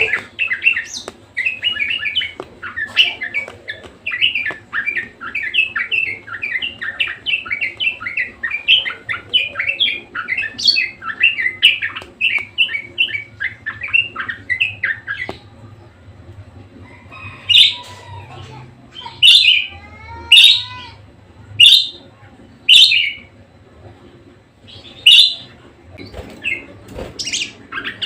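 Budgerigar singing: a rapid, continuous chattering warble, which about halfway through gives way to a run of louder, separate sharp calls, roughly one a second.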